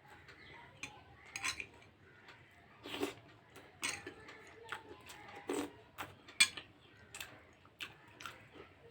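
Irregular clinks and knocks of a plate and utensils during a meal, with a few heavier knocks and one sharp clink about six seconds in.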